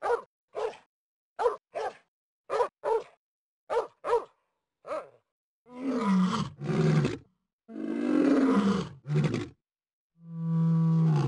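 A dog barking in short barks, often in pairs, for about five seconds, then growling in three longer rough bursts, ending with one long low groan that falls slightly in pitch.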